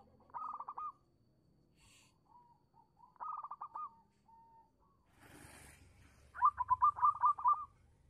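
Zebra dove (perkutut) singing: three short bursts of rapid, staccato cooing notes, each under a second long, the last one the loudest. A brief rustling noise comes just before the last burst.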